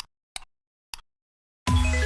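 A run of sharp ticks slowing down, three in the first second, like a ratchet or wheel clicking to a stop; then dead silence, and music with a deep bass line and a plucked melody starts near the end.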